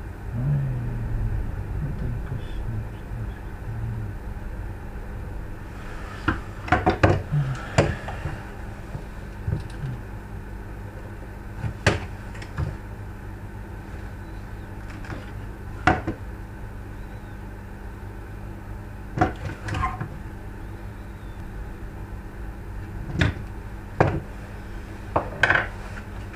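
Scattered sharp clicks and knocks of plastic parts of a car's climate control unit being handled and pried apart, coming in a few clusters over a steady low hum.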